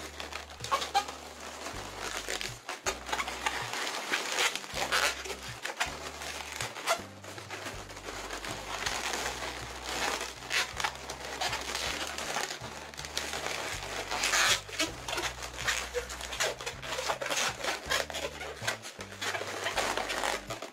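Long latex modelling balloons being handled and twisted into pinch twists, with irregular squeaks and rubbing of the rubber.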